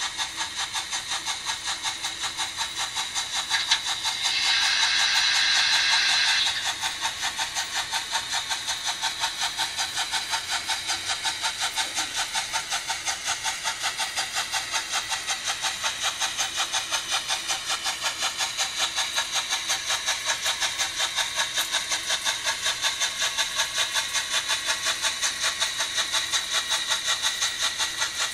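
Märklin H0 model steam locomotive's sound decoder playing a steady, rhythmic steam chuff as the locomotive runs under load. About four seconds in, a louder steam hiss sounds for a couple of seconds, then the chuffing carries on evenly.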